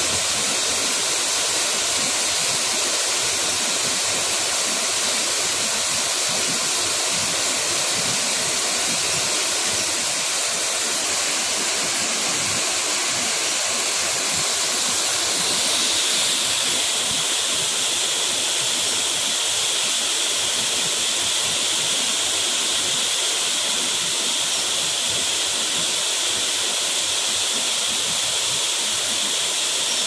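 Multi-tiered waterfall pouring down a rock face into a plunge pool: a steady, even rush of falling water, its tone shifting slightly about halfway through.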